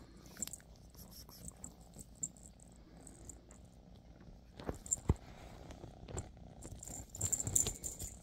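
A Scottish Fold kitten plays with a feather wand toy on a leather couch: irregular rattling and rustling from the wand and feathers, with soft thumps as the kitten pounces, the loudest about five seconds in and again near the end.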